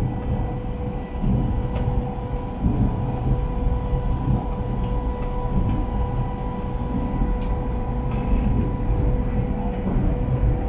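Shanghai Metro Line 2 subway train running between stations, heard inside the passenger car: a steady rumble of wheels on rail with a constant high whine over it and a few faint clicks.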